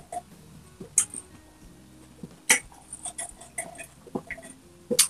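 Water being swallowed in gulps from a glass mug, close to the microphone: several sharp swallowing clicks and throat sounds spaced a second or so apart.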